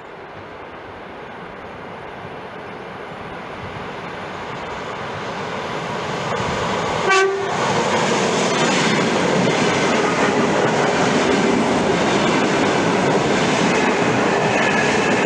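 ED4M electric multiple unit approaching, its running noise growing steadily louder. It gives one short horn blast about seven seconds in, then passes close by with a loud, steady rush of wheels on rails and the clickety-clack of the cars.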